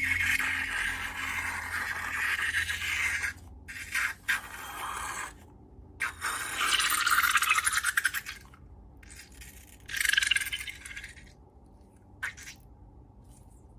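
Crackly scraping and rubbing from slime being worked by hand, in several bursts with short gaps between them; the longest and loudest burst comes about halfway through, and the sound fades away near the end.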